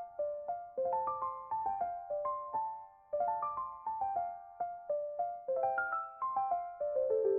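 Background music: a soft piano-like keyboard playing repeated descending runs of notes, each note struck and fading.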